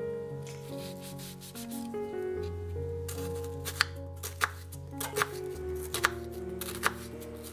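A chef's knife slices through an onion on a wooden cutting board. There is scraping and rubbing at first, then about five crisp knocks of the blade on the board in the second half, each under a second apart. Soft background music plays underneath.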